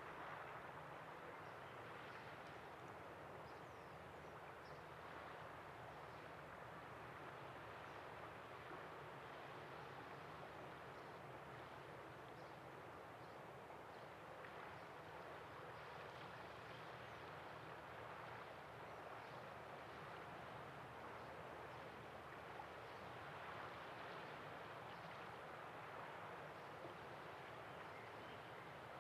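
Faint, steady outdoor ambience on the estuary: an even wash of noise with small scattered ticks, and no distinct event standing out.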